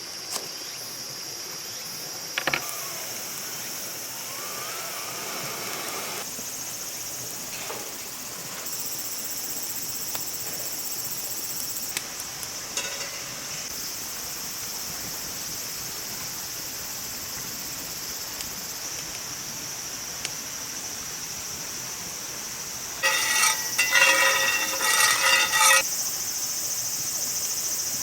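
Steady high-pitched outdoor drone, like insects, over a hiss, with a few faint clicks. Near the end a louder pitched, wavering sound lasts about three seconds.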